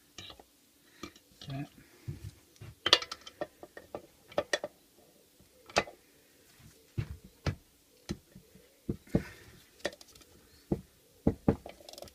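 Irregular metallic clicks and clinks of a socket tool working a bolt loose inside an open small-engine crankcase.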